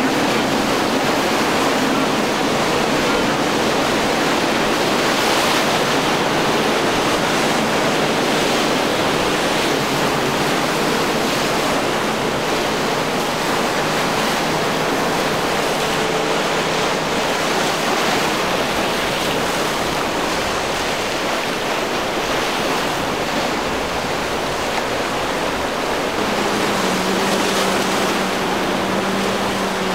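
Steady rush of choppy surf and wind-blown water, with the drone of boat outboard motors running underneath; a new, lower engine note comes in near the end.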